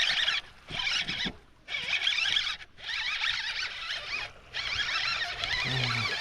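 Fishing reel being cranked fast in several spurts with short pauses, a rasping gear whir, as a bass hooked on a topwater popper is reeled in.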